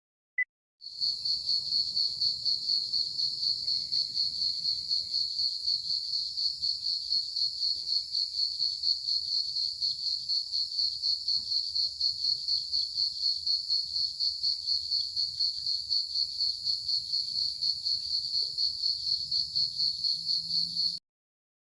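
Crickets chirping in a steady, high, evenly pulsing trill, several pulses a second, cutting off suddenly near the end. A short beep comes just before the chirping starts.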